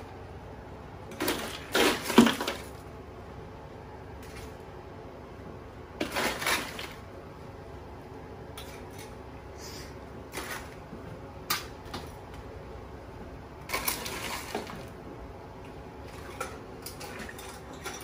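Steel kitchen tongs clattering and scraping as crabs are lifted out of an ice-filled cooler and dropped into a large metal stockpot, with shells and ice rattling. It comes in several separate bursts, the loudest about two seconds in and others around six, eleven and fourteen seconds in.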